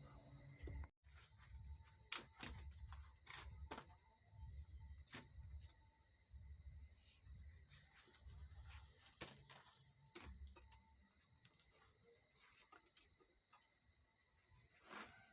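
Faint, steady high-pitched insect trill, like crickets in the background, with scattered small clicks.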